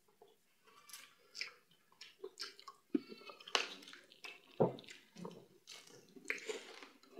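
Close-up eating sounds of fufu and meat in peanut palmnut soup eaten by hand: irregular wet chewing and squishing.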